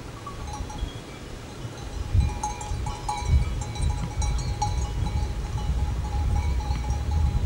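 Bells on a grazing flock of sheep clinking irregularly, most of the rings coming between about two and five seconds in, over a low rumble.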